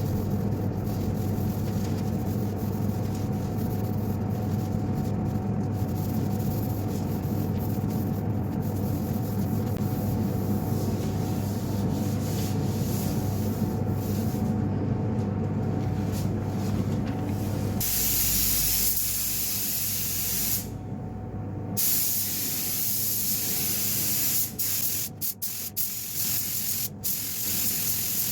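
Spray gun hissing as lacquer clear coat is sprayed onto the car's panels, over a steady low hum. The hiss turns brighter and louder about 18 seconds in, stops briefly a couple of seconds later, and breaks off a few more times near the end.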